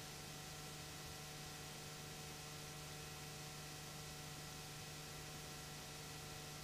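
Steady electrical hum with an even hiss and nothing else: the noise of a soundless security-camera recording.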